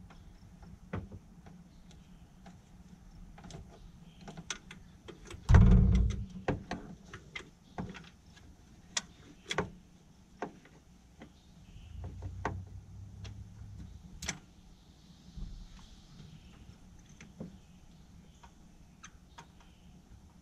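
Scattered clicks and knocks of hand tools and engine parts being handled during spark plug removal on a Ford F-150's 4.6 V8, with one heavy thump about five and a half seconds in.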